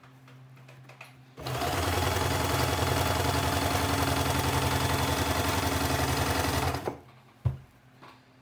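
Sewing machine stitching at a steady fast speed for about five seconds through fabric and waistband elastic, then stopping. A single sharp click follows.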